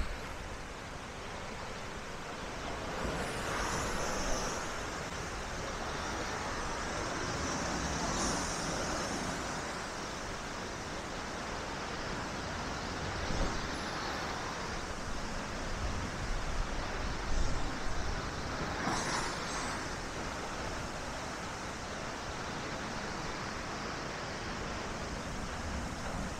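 Black Sea waves washing onto the shore, a steady rush of surf that swells with a few larger waves, about four seconds in, eight seconds in and near nineteen seconds in. Wind buffets the microphone with a low rumble.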